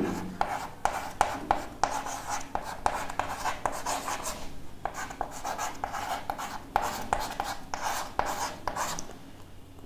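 Chalk writing on a chalkboard: a quick run of short scratching and tapping strokes as letters are written, dying away near the end.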